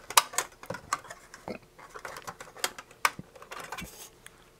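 Irregular light metallic clicks and scrapes as a thin sheet-metal shield lid is pried off a circuit can on the underside of an ICOM IC-730S transceiver.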